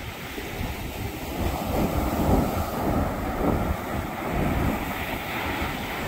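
Small ocean waves breaking on a sandy beach and washing up the shore, swelling louder about two seconds in and easing off again, with wind rumbling on the microphone.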